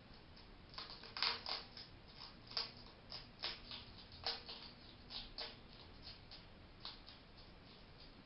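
A hedgehog giving a quick, irregular series of short sneeze-like puffs, about fifteen of them between about a second in and near the end. The owner at first feared this was a sign of illness, and has since learned it is a sign the hedgehog is happy.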